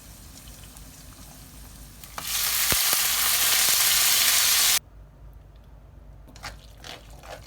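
Pork neck sizzling loudly in a frying pan, starting about two seconds in and cutting off abruptly near the five-second mark, with a few soft scrapes afterwards.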